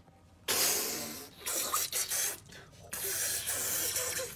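A man blowing hard onto his cupped hands, three long breathy blows, each about a second.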